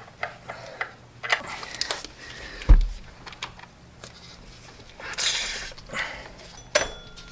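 A socket wrench working the spring-loaded serpentine belt tensioner in an engine bay: scattered metal clicks and knocks, one heavy thud nearly three seconds in, a short rushing noise about five seconds in and a sharp click near the end.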